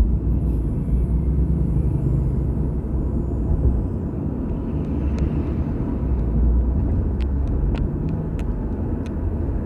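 Outdoor ambience at a riverside bridge: a steady low rumble with a few faint ticks near the end.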